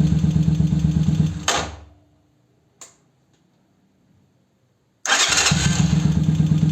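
125Z motorcycle's single-cylinder engine idling, then shut off about a second and a half in, followed by a single click. About three seconds later it is started again on the new electric starter: a brief burst of cranking and the engine catches at once and idles steadily, starting quickly with no starter noise.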